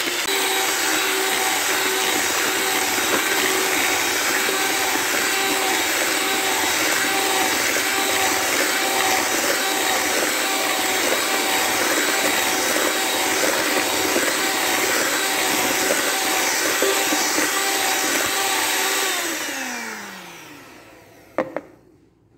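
Electric hand mixer running steadily at high speed, its beaters churning butter and sugar while creaming them for a cake batter. About 19 seconds in it is switched off and the motor winds down with a falling whine, followed by a sharp click near the end.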